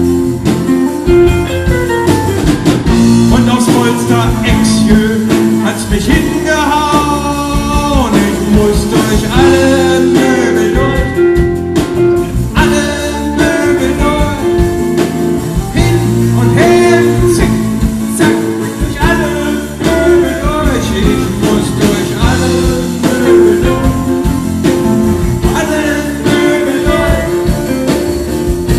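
Live rock band playing: a man singing into a microphone over electric guitar, bass guitar, keyboard and drums.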